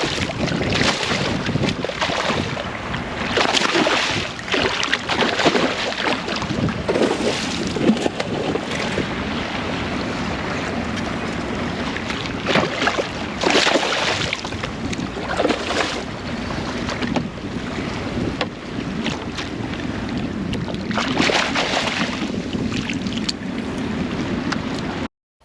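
Wind buffeting the microphone over water splashing and lapping around a kayak, with irregular louder splashes every few seconds. It cuts off suddenly near the end.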